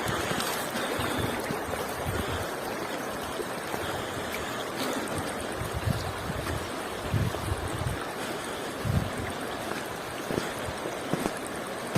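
Running water, like a stream, with a steady rushing sound and a few low thumps now and then.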